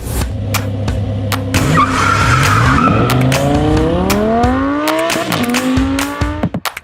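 Car engine revving, its pitch climbing several times, with a brief tire squeal about two seconds in and a series of sharp hits, packed more closely near the end.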